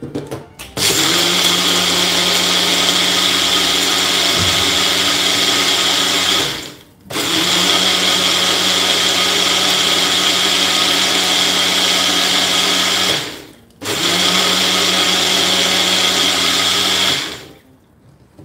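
Bullet-style personal blender running in three bursts, the first two about six seconds each and the last about three, with brief stops between them. It is blending green herb paste with yogurt into chaas (spiced buttermilk), a steady motor whine that stops about a second before the end.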